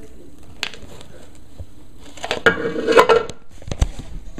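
Handling noise from a plastic deli cup lined with paper towel being knocked and jostled: rustling and clicking, with a dense clatter of knocks about two to three and a half seconds in, and a few single clicks before and after.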